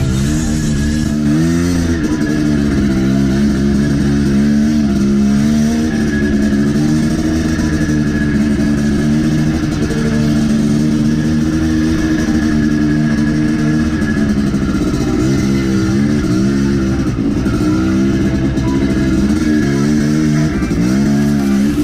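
Dirt bike engine running at low speed, its pitch rising and falling with small throttle changes, more often in the second half.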